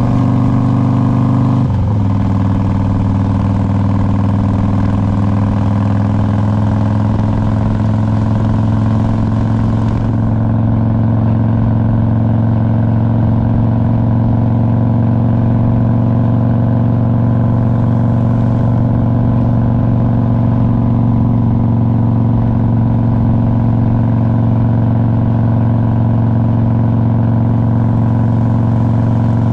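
2001 Harley-Davidson Road King's Twin Cam 88 V-twin engine running steadily under way. The engine note steps down once about two seconds in, then holds steady.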